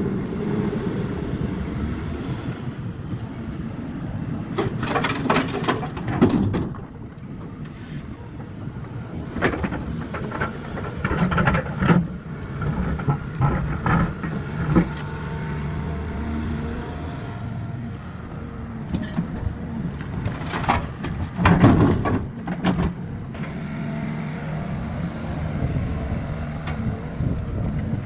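Excavator's diesel engine running steadily, with several loud crashes and scrapes as concrete slabs are handled and dropped into a dump trailer, the loudest about three quarters of the way through.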